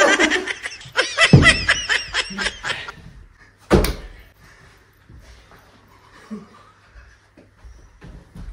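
A woman's high-pitched laughter in quick repeated bursts for about the first three seconds, with a loud thump about a second and a half in. A sharp thud comes near four seconds, then only faint scuffling.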